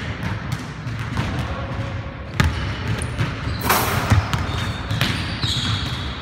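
A basketball bouncing on a hardwood gym floor, several irregular thuds, with one louder noisy burst a little before four seconds in.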